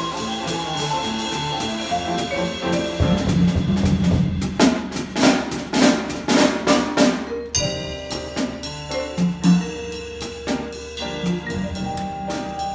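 Jazz trio of grand piano, vibraphone and drum kit playing together. The drumming is busiest from about three seconds in and thins to spaced accents after the middle.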